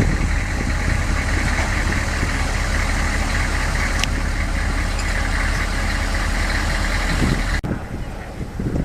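A vehicle engine running steadily with a constant low hum. It cuts off abruptly near the end, leaving quieter wind noise on the microphone.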